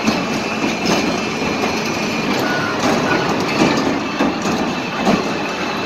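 Spinning amusement ride running: the domed cars' wheels rumble and clatter steadily over the rotating platform's track, with scattered clanks and a faint steady high whine.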